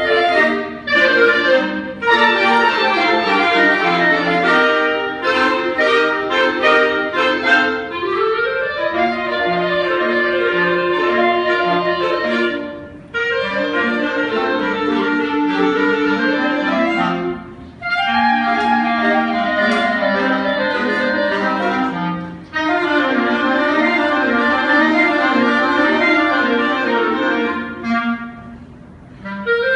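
Instrumental music: a lively melodic tune played in phrases, with brief breaks between phrases about 13, 17 and 22 seconds in and a softer dip near the end.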